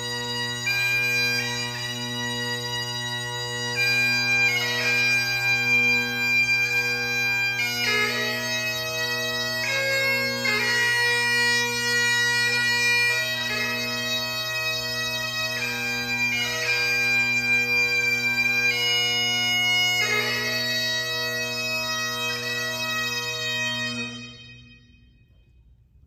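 Highland bagpipes playing a slow tune of held notes over their steady drones, stopping near the end.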